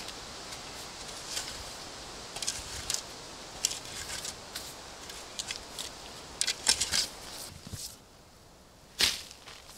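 Footsteps on soft forest ground and a shovel being handled: a string of short scuffs and clicks. Near the end the steel shovel blade bites into loose soil with one sharp scrape.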